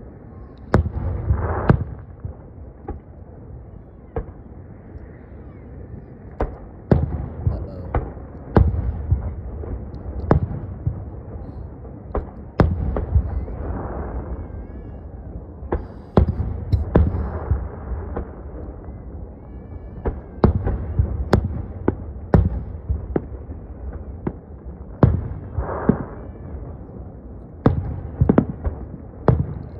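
Aerial fireworks display with shells bursting one after another. Sharp bangs come every second or two, some in quick clusters, over a continuous low rumble.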